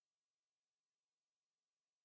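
Near silence: the audio track is essentially empty, with no audible sound.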